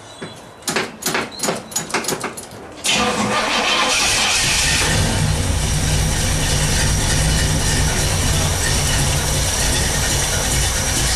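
1964 Pontiac GTO's carbureted 389 V8 cranking over on a cold start with a quick run of uneven pulses. It catches about three seconds in and runs loud and steady for about eight seconds, then cuts off near the end.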